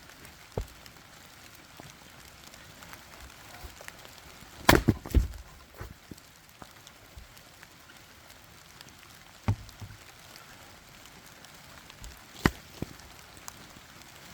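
Scattered knocks and taps over a faint steady hiss, with a cluster of loud knocks about five seconds in and single sharp ones a few seconds apart.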